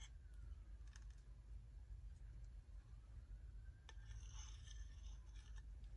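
Near silence: low room hum with a few faint, short clicks.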